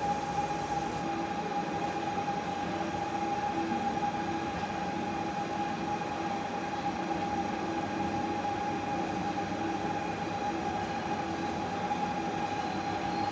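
Steady drone of factory machinery, a continuous mechanical hum with a steady high whine running through it.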